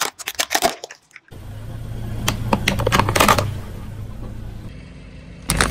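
Car tyre rolling over plastic toy figures on concrete, crushing them with sharp cracks and crunches. A burst of snapping in the first second, then a low rumble of the rolling car with a run of crackling snaps about two to three and a half seconds in, and another burst of cracks at the very end.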